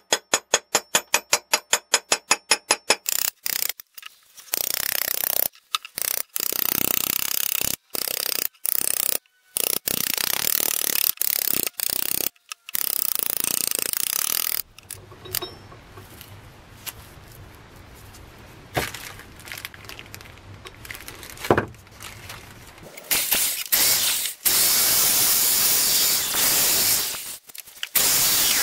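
Quick light hammer taps on a steel punch against the cleaver's steel blade, about five a second, then loud noisy stretches that cut off abruptly and a quieter spell with scattered clicks. Near the end an electric drill runs a sanding disc against the steel blade.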